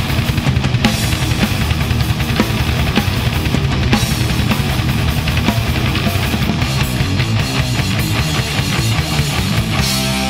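Death metal song: heavily distorted guitars over fast, dense drumming. Near the end the drum hits thin out and held guitar chords ring.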